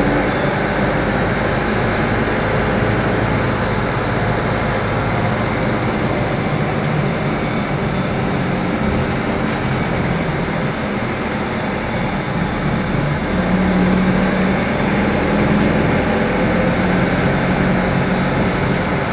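Steady engine and road noise inside a moving shuttle bus. The low engine hum grows louder twice in the second half.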